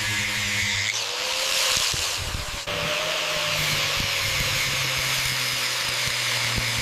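A motor-driven tool running with a steady hum and hiss; the sound changes abruptly a little under three seconds in.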